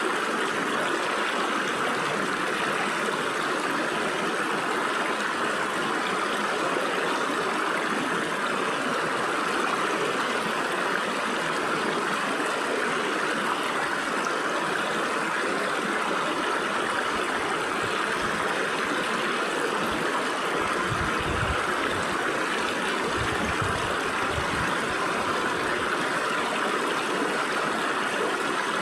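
Stream water flowing steadily through gaps between rocks, a constant rushing and gurgling.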